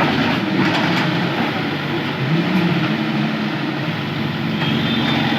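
Diesel engine of heavy road-construction machinery running under load, its pitch rising a little about two seconds in.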